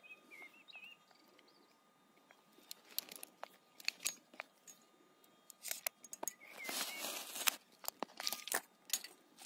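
Scattered small clicks and rustling from objects being handled, with a denser patch of crinkling about seven seconds in and again just before the end.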